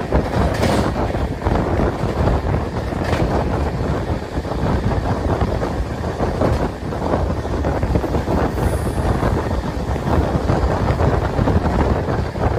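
Passenger train coach running at speed, its wheels rumbling on the rails, heavily mixed with wind buffeting the microphone held out at the coach's window.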